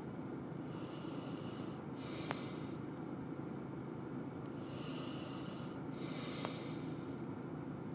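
A person breathing through the nose close to the microphone: a breath in and a breath out about every four seconds, over a steady low hum.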